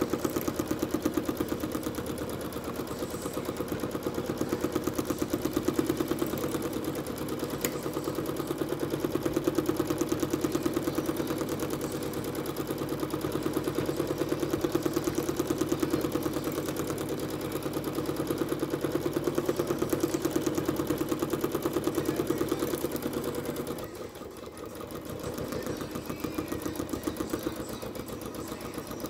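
Janome Skyline S9 computerized sewing machine stitching steadily at speed, the needle going in a fast, even rhythm. About three-quarters of the way through it slows and quiets for a moment, then speeds back up.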